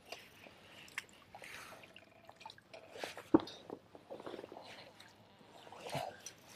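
Kayak being paddled through shallow, weedy marsh water: dripping and small splashes from the paddle, with scattered light knocks and one sharp knock about three seconds in.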